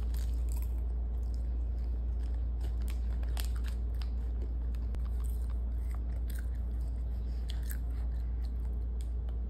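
A child chewing popcorn, with scattered crisp crunches, over a steady low hum.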